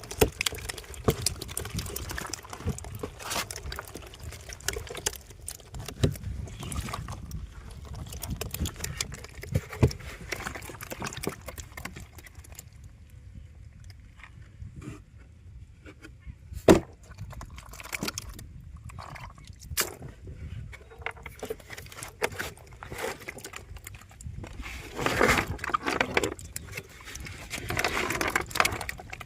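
Water splashing and sloshing, with scattered knocks and clicks and a sharp knock partway through.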